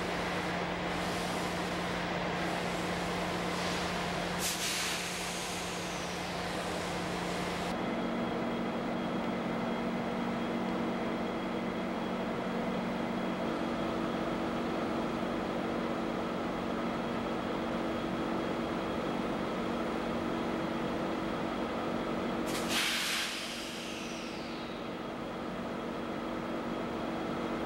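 Steady drone of idling diesel locomotives, its tone shifting about a quarter of the way in. Two short sharp hisses of air being let off, like locomotive air brakes, one early and one near the end.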